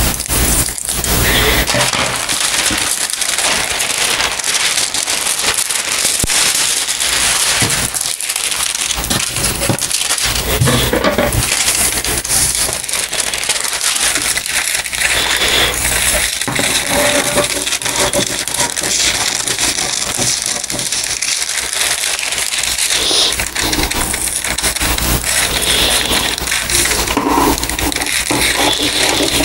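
Scissors cutting through sheets of tracing paper, with the thin paper crinkling and rustling as it is handled and turned.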